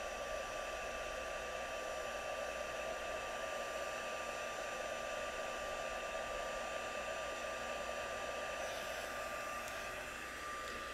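Stampin' Up! heat tool, a hand-held embossing heat gun, running steadily: an even rush of blown air with a thin steady whine, drying freshly stamped ink on watercolor paper.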